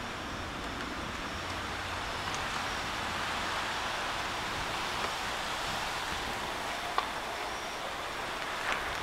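Steady rain falling in a thunderstorm, an even hiss, with one faint click about seven seconds in.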